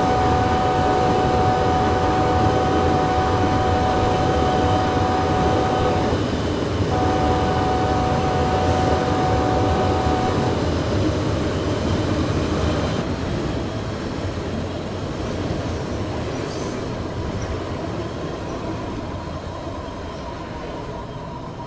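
BNSF freight locomotive's air horn sounding a chord of several steady tones: a long blast, a brief break about six seconds in, then a second blast of about three and a half seconds. Under it the steady rumble of the passing tank-car train, which fades away over the last several seconds.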